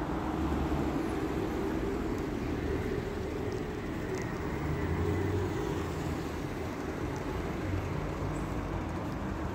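Steady low rumble of motor vehicles in street traffic.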